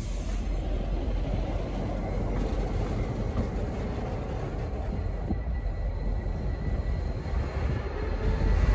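V/Line N class diesel locomotive running, a steady low engine rumble that grows louder near the end as it draws closer. A faint high squeal comes in near the end.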